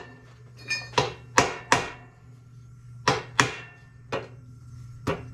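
A series of light hammer taps on a metal engine fan shroud, about eight sharp, ringing knocks in loose groups with a short pause midway, as the shroud is seated onto its locating pins on a two-stroke golf-cart engine.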